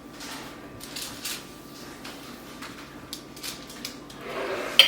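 Faint handling noises of food preparation: scattered light clicks and soft rustling, with a louder rustle building near the end.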